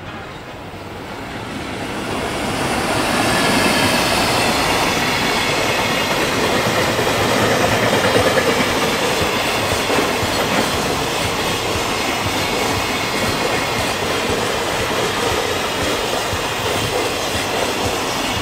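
JR Freight EF210 electric locomotive passing with a long train of container flat wagons. The noise builds over the first three seconds or so as it draws level, then holds as a steady sound of the wagons' wheels running on the rails.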